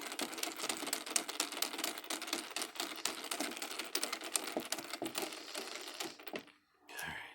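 A screwdriver driving a small machine screw into a steel mortise lock case: a dense run of rapid small clicks and scraping that stops about six seconds in.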